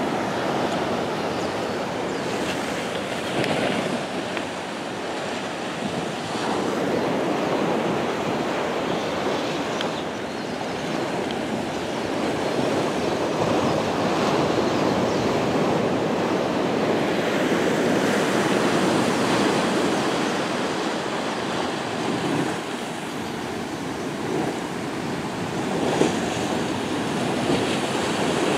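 Ocean surf washing in, a steady rush that swells and eases every few seconds, with wind buffeting the microphone.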